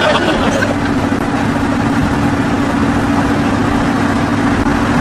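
A car driving at a steady speed: even engine and road noise with a steady low drone.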